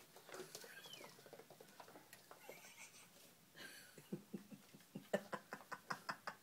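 Kittens mewing faintly, one short falling mew about a second in. In the last second and a half there is a quick run of sharp taps, about five a second.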